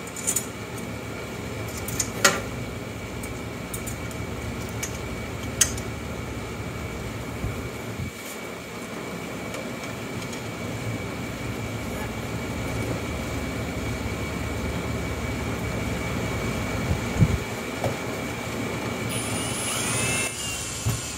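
A steady mechanical hum, like a shop air conditioner, runs under a few sharp clicks and taps as a metal ruler is handled against the wall. Near the end a Milwaukee cordless drill whirs briefly with a rising whine as it drives a screw through the ruler into the wall.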